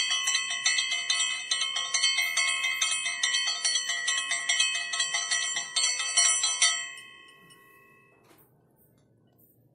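Puja hand bell rung rapidly and without pause for the offering. The ringing stops about seven seconds in and dies away over the next second.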